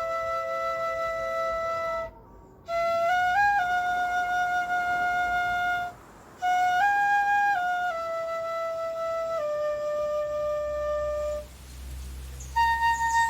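A solo flute-like wind instrument playing a slow melody of long held notes that step between a few pitches, broken by three short pauses.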